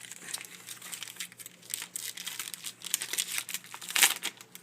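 Crinkling and rustling of trading cards and a pack's wrapper being handled, an irregular run of crackles and clicks with the loudest crackle about four seconds in.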